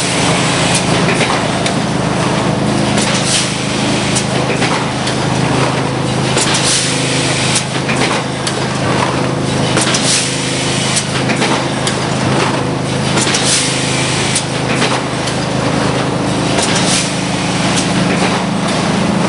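Brown plastics thermoformer and sheet extrusion line running: a steady loud machine hum with frequent short hissing or clattering strokes over it.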